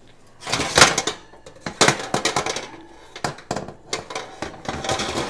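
Wire oven rack scraping and rattling against the metal rack supports of an electric oven as it is pulled out and slid back in at a lower level, in several bouts of metallic clatter with sharp clicks.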